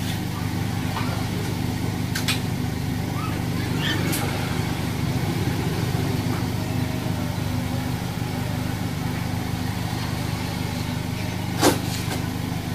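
Motor vehicle engine running steadily with a low hum, with a few brief sharp clicks or knocks, the loudest near the end.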